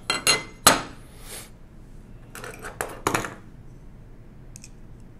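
Sharp metallic clicks and clinks in two clusters, in the first second and again around three seconds in: a small steel screw and measuring tools, a screw-checker gauge and a digital caliper, being handled and set down.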